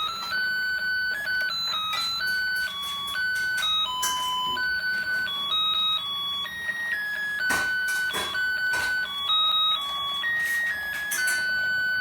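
Battery-operated toy fishing game playing its electronic melody: simple beeping notes, one at a time, stepping up and down. Scattered sharp clicks sound over it.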